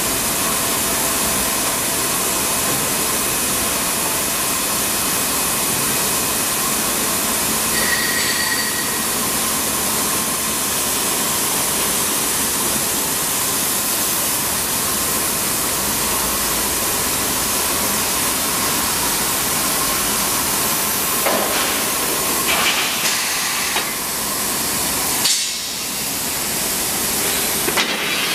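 Steel-bar straightening machine running on a bar-processing line: a steady mechanical hiss with a faint hum, a brief high whine about eight seconds in, and a few clanks in the last several seconds.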